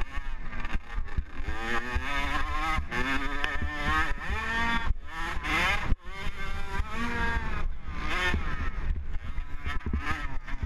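Motocross dirt bike engine revving hard, its pitch climbing and dropping through gear changes, with a sharp drop when the throttle is chopped about six seconds in. Wind buffets the helmet-mounted microphone.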